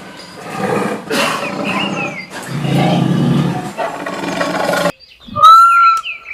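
A big cat roaring and growling, loud and rough, for about five seconds; it cuts off abruptly, and near the end a domestic cat starts to meow.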